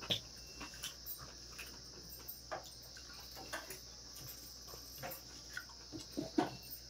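Eating by hand: fingers working rice on a steel plate, with chewing and mouth clicks heard as scattered faint clicks and taps, a few louder ones near the end. A steady high-pitched hiss runs underneath.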